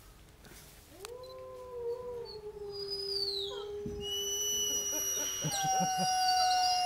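White wolf howling: one long howl that rises at its start about a second in, then holds a steady pitch. Near the end a second, higher howl joins in over it.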